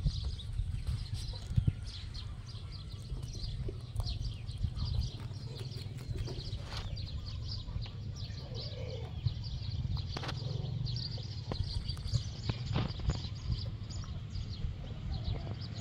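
Rabbits chewing leafy green stems and flowers: a quick, irregular run of small crisp crunches over a steady low background rumble.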